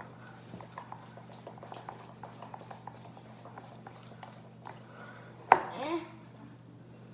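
A utensil clicking and scraping in a bowl as glue and shaving cream are stirred together for slime, a long run of small irregular taps, with one sharp knock about five and a half seconds in followed by a brief voice sound.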